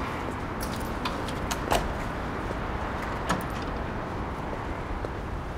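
Steady street background of distant traffic, with a few short, sharp taps, the clearest just before two seconds in and again at about three seconds.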